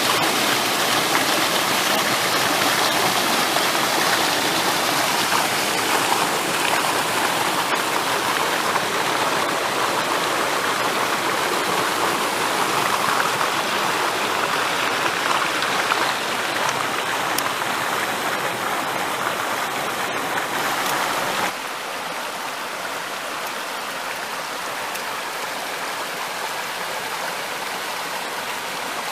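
Rocky stream rushing over rock slabs in small cascades, a steady, loud splashing rush. About three-quarters of the way through it drops abruptly to a softer, lighter flow of shallow water over stones.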